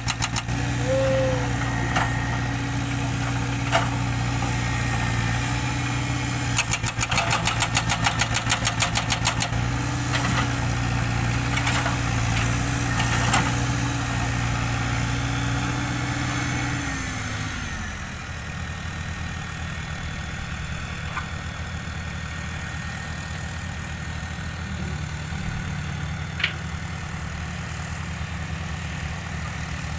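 Diesel engine of heavy earthmoving machinery running steadily, with a few seconds of rapid rattling about a quarter of the way in. A little past halfway the engine note drops and settles into a lower, quieter idle.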